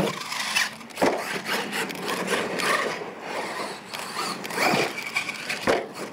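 Radio-controlled monster truck driving on loose dirt: its drivetrain whines up and down in pitch over a gritty scrabble of tires on dirt. Sharp knocks about a second in and twice near the end, as the truck comes down on its wheels and bounces.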